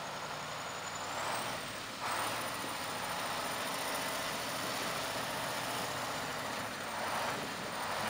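KAMAZ six-wheel-drive truck's diesel engine working as its tyres churn through slush and broken ice in water, a steady splashing hiss over the engine that gets louder about two seconds in.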